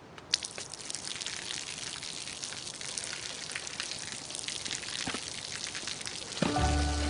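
Water pattering and splashing in a steady stream of small drops, falling from overhead onto the pavement and into a bucket. Music comes in with a deep bass note near the end.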